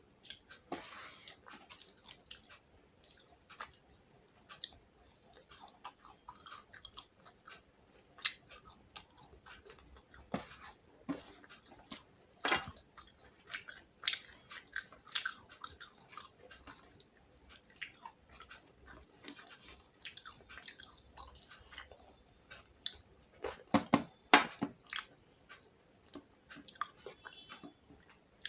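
A person chewing and biting on fish and rice, with wet mouth smacks and small clicks throughout. A short run of louder clicks and knocks comes about 24 seconds in.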